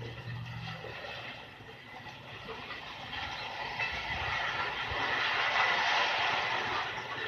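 Steady grinding, clattering industrial noise from a scrap-metal recycling yard, swelling louder about halfway through.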